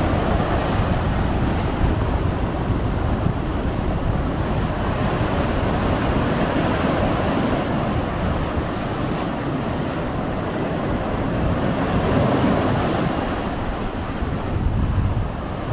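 Ocean surf breaking and washing in over a low, algae-covered rock shelf onto the sand: a continuous rush that swells and eases as each wave comes in.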